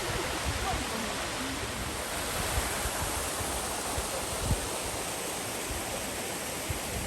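Steady rushing of a mountain stream's water, with a few soft low thumps, the loudest about four and a half seconds in.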